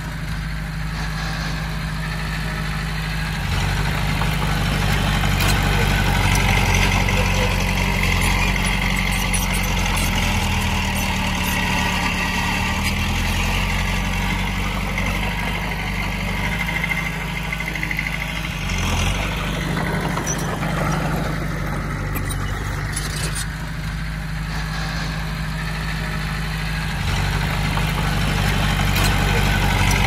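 Komatsu D20P bulldozer's diesel engine running under varying load, its note shifting up and down several times, with a little louder stretches a few seconds in and near the end.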